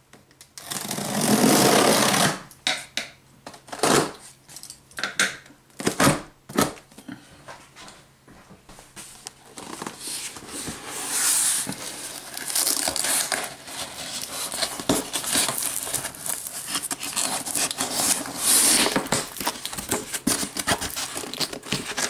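A cardboard laptop shipping box being cut open with scissors and handled: a loud rasp of the scissors through the packing tape in the first couple of seconds, then scattered knocks, then a long stretch of cardboard rustling and scraping as the box is turned and its flap opened.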